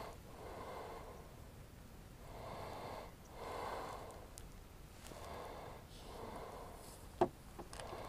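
Slow, even breathing close to the microphone, a breath in and a breath out about every two and a half seconds. A single sharp click sounds about seven seconds in.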